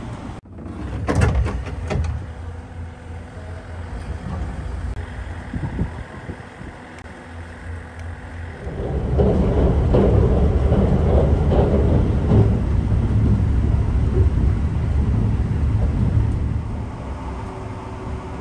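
Steady low rumble and rail noise of a limited express train running, with a few sharp clicks early on. About halfway through, the running noise grows louder for some seven seconds, then eases back.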